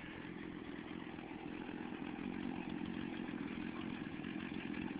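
Chainsaw running steadily and faintly, growing a little louder over the few seconds.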